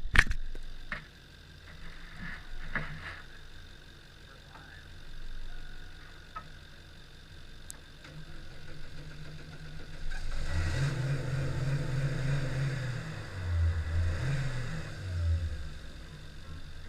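Chevrolet Cavalier engine running, low at first, then revved louder from about ten seconds in, with two surges near the end. A few sharp knocks come in the first seconds.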